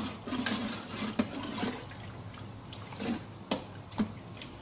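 A rice paddle stirring rice in coconut milk and water inside a rice cooker's inner pot: liquid sloshing, with a few sharp knocks of the paddle against the pot.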